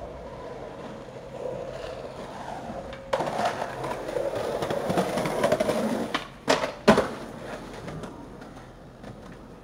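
Skateboard wheels rolling over pavement and concrete sidewalk, growing louder partway through, then two sharp clacks of the board hitting the ground in quick succession, the loudest sounds, followed by quieter rolling.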